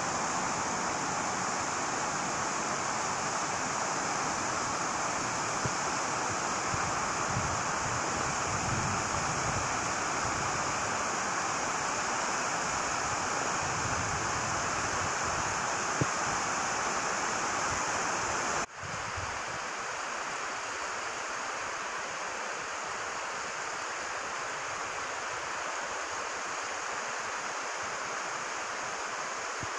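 Floodwater rushing steadily over a river weir, with wind buffeting the microphone. About two-thirds of the way through the sound cuts abruptly and carries on a little quieter, with less of the low wind rumble.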